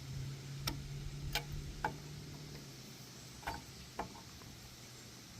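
Five sharp, separate clicks at uneven spacing over a faint low hum that fades out a little before the middle.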